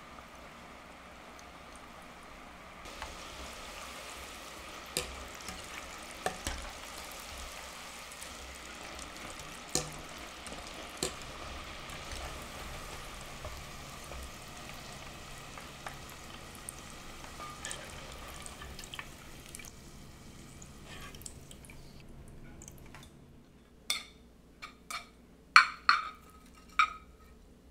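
French fries deep-frying in oil at 350°F: a steady sizzle and bubbling, with occasional sharp clicks of a wire spider strainer against the pot. Near the end the sizzle stops, and a few loud clicks and taps follow as kimchi is scraped from a bowl onto the fries.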